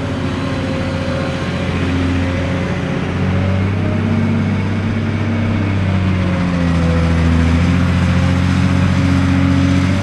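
Cat 385C LME hydraulic excavator's diesel engine running under load, its pitch shifting up and down as the load changes, with a thin whine over it.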